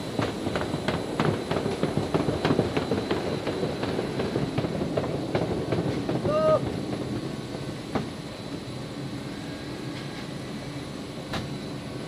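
Cargo pallet rattling and clanking over the metal roller conveyors of a C-130J Super Hercules cargo floor, with a short squeak about six and a half seconds in. After about eight seconds the clatter dies down, leaving a steady background hum.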